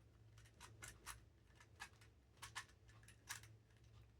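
Faint, irregular clicks of a new 3D-printed plastic icosahedron twisty puzzle being turned, its pieces clicking as the faces turn. A low steady hum sits underneath.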